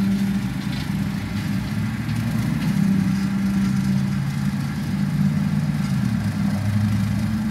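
John Deere 4066R compact tractor's diesel engine running steadily under load while it pulls a 6-foot bush hog rotary cutter through tall grass; the drone shifts slightly in pitch a couple of times.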